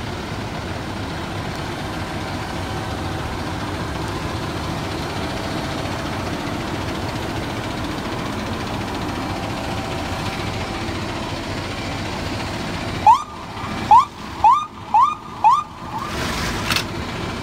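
A KME fire truck's diesel engine idling steadily, then about thirteen seconds in its siren gives five short, rising chirps in quick succession, followed by a fainter brief sound.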